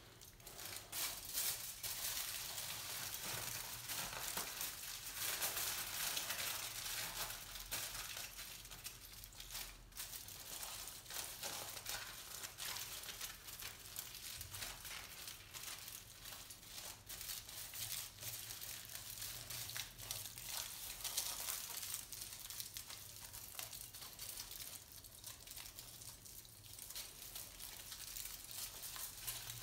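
Aluminium foil crinkling and crackling as hands press and mould a foil mask around a head, a continuous fine crackle that eases a little near the end.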